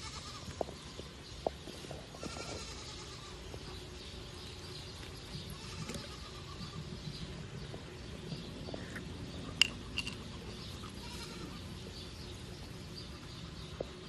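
Goats bleating faintly in the background over steady outdoor ambience, with a few sharp clicks; the loudest click comes about two-thirds of the way through.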